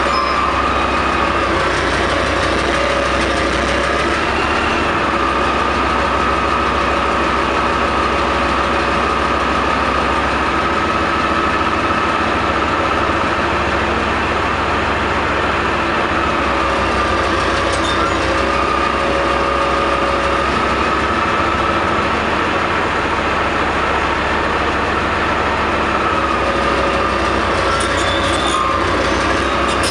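Flakpanzer Gepard's MTU MB 838 ten-cylinder multi-fuel diesel idling steadily, a deep rumble with a steady whine over it.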